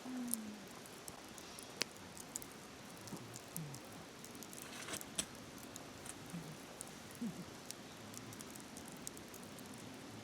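Wood campfire crackling, with scattered sharp pops, over the steady rush of a flowing river. A few short, low, falling notes come through now and then.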